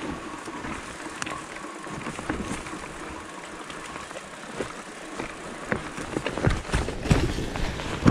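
Electric mountain bike (Propain Ekano) riding over a dirt trail: steady tyre and rolling noise with frequent clicks and rattles from the bike over rough ground, and heavier thumps in the last couple of seconds.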